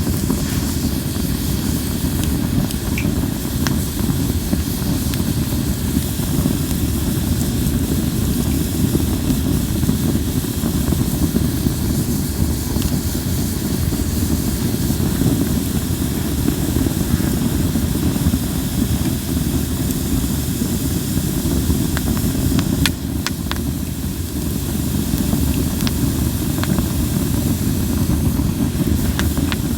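Linden-wood campfire burning in a fire pit: a steady low rumble and hiss, with a few sharp crackles popping here and there.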